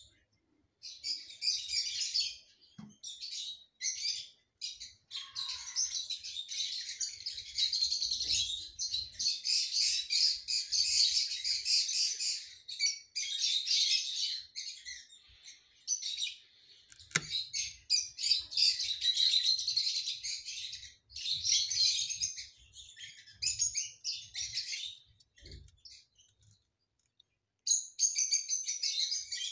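Small songbirds chirping and twittering rapidly and high-pitched, in long runs broken by brief pauses.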